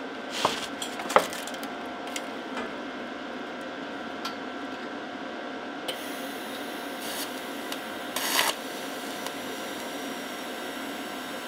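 TIG welding arc on stainless steel handrail tubing, hissing steadily from about six seconds in, with a couple of brief louder bursts, over a steady electrical hum. A few sharp knocks come first as the torch and tube are handled.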